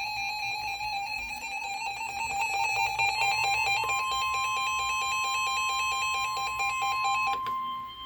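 Emergency alert attention signal: a rapidly warbling electronic beeping pattern, joined about three seconds in by a steady single-pitch alert tone. The tone carries on alone after the warbling stops near the end.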